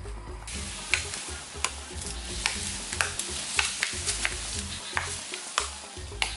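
Brittle bamboo being split and pried open with a knife and by hand: sharp cracks and snaps, roughly one to two a second, over a continuous crackling of splitting fibres.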